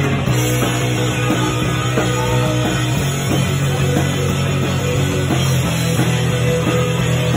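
A live rock band playing loud, with electric guitar and drums.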